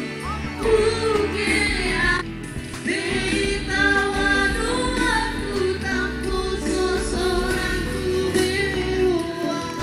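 Background music: a song with a sung vocal over a steady instrumental backing.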